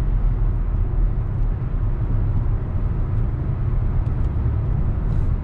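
Steady low engine and road rumble of a 2016 Nissan Maxima, heard inside the cabin while driving.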